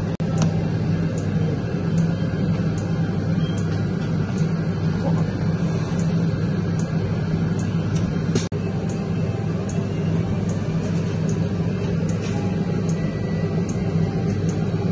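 Steady low mechanical hum from a running frozen-drink slush machine, with a faint tick repeating a little more than once a second.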